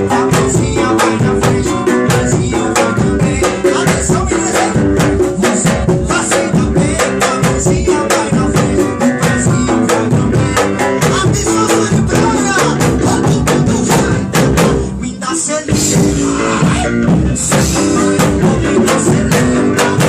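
A band playing: music with a steady drum beat and guitar, briefly thinning out about fifteen seconds in before the full beat returns.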